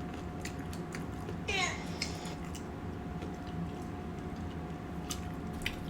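Quiet room with a steady low hum and scattered small clicks. About a second and a half in comes one brief squeak that slides down steeply in pitch.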